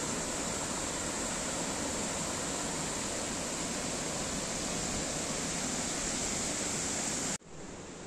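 Large waterfall rushing steadily. Near the end it cuts off abruptly to a quieter rush.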